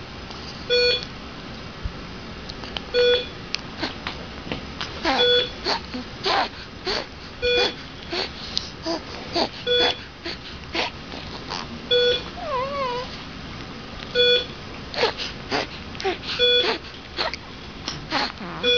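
A young child's stridor: harsh, noisy breathing with each quick breath, broken now and then by short whimpering cries. It is the sound of a narrowed upper airway. An electronic beep repeats steadily about every two seconds.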